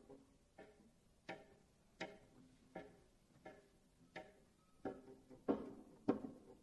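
Quiet plucked string notes at a slow, steady pulse, about one every two-thirds of a second, each ringing briefly and dying away, coming a little closer together near the end.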